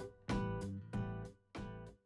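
Background music: strummed guitar chords, one struck about every half second and each dying away, getting quieter toward the end.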